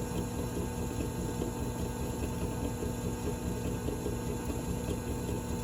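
Drill press motor running steadily with no load, a constant hum over a noisy whir.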